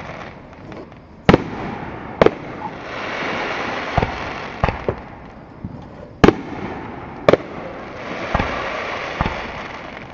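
Aerial fireworks display: about eight sharp booming bangs at irregular intervals, the loudest about a second in and again about six seconds in, each trailing off in an echo.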